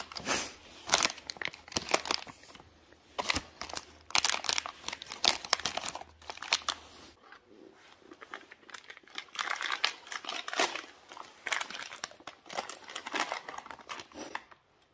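Clear plastic packaging bags crinkling and rustling in irregular bursts as clip-on handlebar clamps and small parts are handled and pulled out of them.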